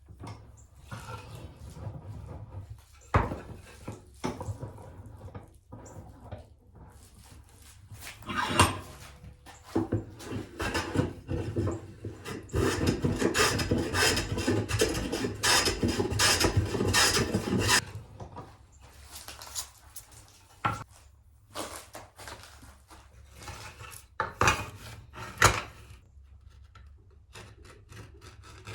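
Hand woodworking on sawn boards: scattered sharp knocks and clatter of wooden boards and hand tools, with a run of rapid, repeated rasping strokes of a hand tool on wood in the middle.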